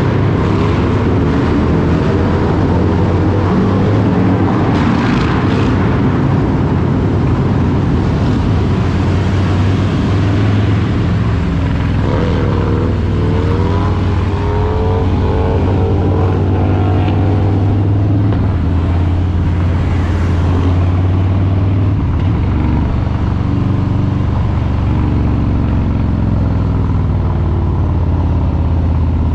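Harley-Davidson Street Bob 114's Milwaukee-Eight V-twin running while the motorcycle is ridden, a steady low engine note whose pitch rises and falls several times with the throttle, most plainly around the middle.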